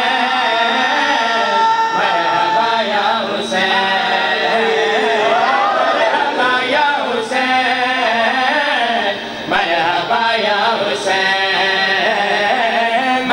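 Men singing a devotional qasida unaccompanied, a lead voice with backing voices, in a sustained chant-like melody.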